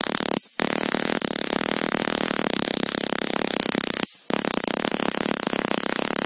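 Stun gun's electrodes arcing: a loud, rapid crackling buzz with a steady high whine. It breaks off twice for a moment, about half a second in and about four seconds in, and stops near the end.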